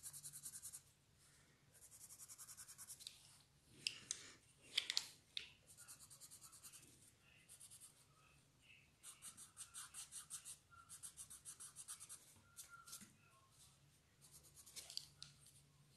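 Faint, rapid back-and-forth shading strokes of a drawing tool on paper, coming in runs of quick scratchy strokes with short pauses between, and a few louder taps of the tool in between.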